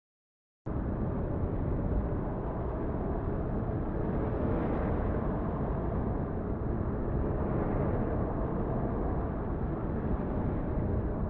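Steady low rumbling wind noise on the microphone outdoors during a fading thunderstorm, cutting in abruptly out of dead silence about a second in.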